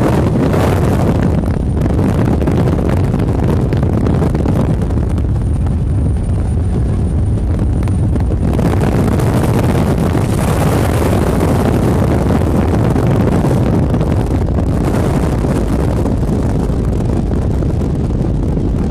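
2005 LLY Duramax 6.6-litre V8 turbodiesel in a powerboat running steadily at part throttle while cruising, with the engine hatch open. Heavy wind buffets the microphone throughout.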